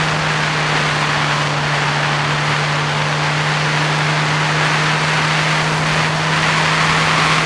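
Motorcycle engine running at a steady cruising speed, a constant drone, under loud rushing wind noise on the microphone.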